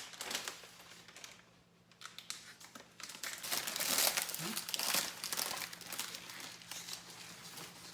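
Packaging crinkling and rustling as an iMac is unboxed, with some tearing; it is fainter at first and grows busier and louder about three seconds in.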